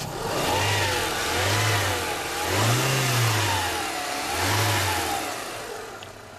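Renault Mégane 1.6-litre 16-valve four-cylinder petrol engine, heard with the bonnet open, revved in four throttle blips, the third rev the highest and longest. It drops back to idle near the end.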